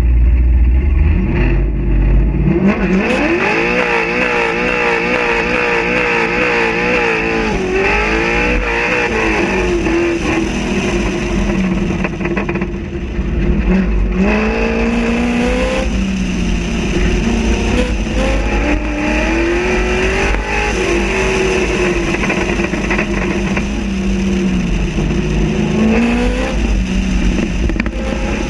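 Chevrolet Corvette Z06's V8 engine under hard driving. It rumbles low at first, revs up steeply about three seconds in, then keeps rising and falling in pitch as the car accelerates, shifts and slows, heard from outside the car's body.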